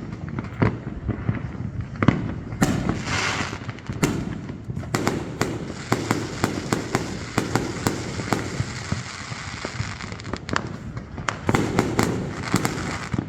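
Many sharp cracks and bangs going off in quick, irregular succession, several a second, over a steady rushing background noise.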